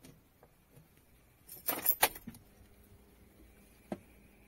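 Hard plastic clicking and rattling as a LINGDU D500 dash cam is pushed and snapped onto its windshield mount by hand: a quick run of clicks about halfway through, then one sharp click near the end.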